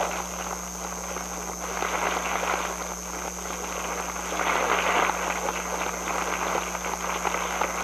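Audience applauding: a dense patter of clapping that swells about four to five seconds in, over a steady electrical hum.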